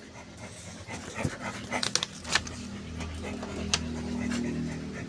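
Pet dogs panting at close range, with a few sharp clicks and a low steady hum in the second half.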